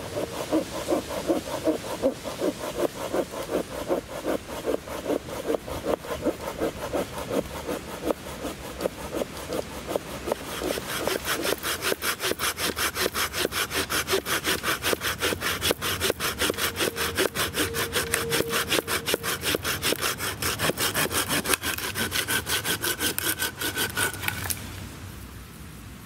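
A small hand saw cutting through a green, mossy branch with steady back-and-forth strokes, which get quicker in the second half and stop abruptly near the end.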